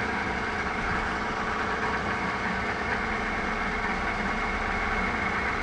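Walker Turner drill press running steadily, its motor and spindle giving an even hum with faint steady tones as it spins a wiggler in the chuck.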